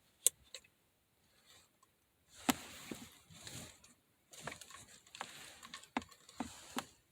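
Handling noises: rustling with several sharp clicks as cords, plugs and a small plastic space heater are handled.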